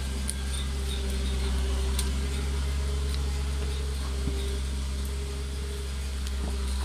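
Komatsu 840.4 forwarder's diesel engine running under load with a steady low hum as the machine climbs a steep, muddy forest slope.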